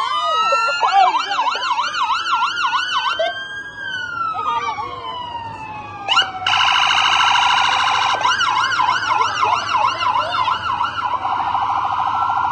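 Police car sirens, several at once, switching between a slow rising-and-falling wail and a fast yelp. About six and a half seconds in, a steady buzzing horn tone cuts in under the yelping.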